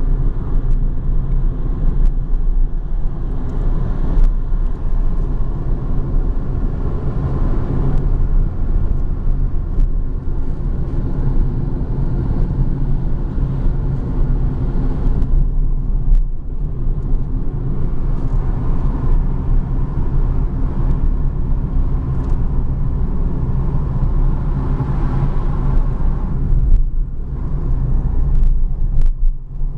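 Engine and road noise inside a moving car: a steady low rumble.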